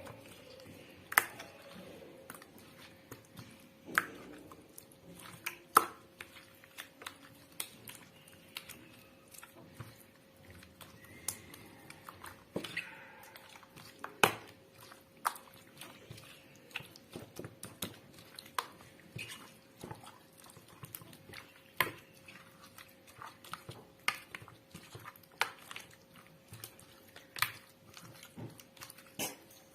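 Hands working rabbit pieces in a wet spice marinade: irregular squelches and knocks of meat being rubbed and turned. A faint steady hum runs underneath.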